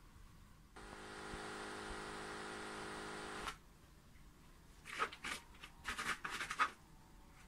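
A steady machine hum starts abruptly about a second in and stops abruptly a few seconds later. Near the end comes a quick run of clicks and rustles.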